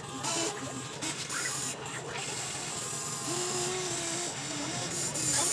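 Electric motors of a Huina RC excavator whining in short spurts as the arm and bucket move, one longer whine about three seconds in, with the bucket scraping through gravel.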